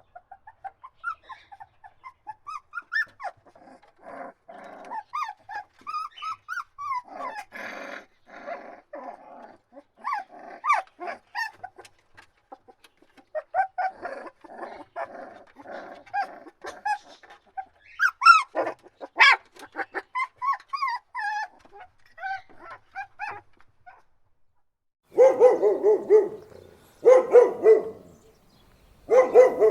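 Dogs whining and yelping in many short high cries that bend up and down, with two stretches of rough, rapid pulsing. Near the end come three clusters of louder, deeper barks.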